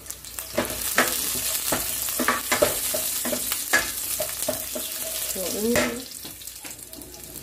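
Garlic cloves, whole black peppercorns and bay leaves sizzling in a little oil in a stainless steel pan as a wooden spatula stirs them, with repeated scrapes and knocks of the spatula against the pan. The sizzle picks up about a second in.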